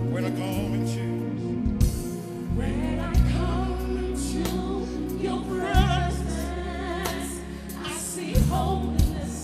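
Gospel worship music: voices singing with vibrato over sustained bass notes, with a few sharp drum hits.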